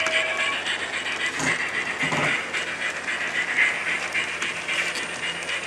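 Model train running along the layout's track: a steady clattering rattle of small wheels and running gear on the rails, with two short louder sounds about one and a half and two seconds in.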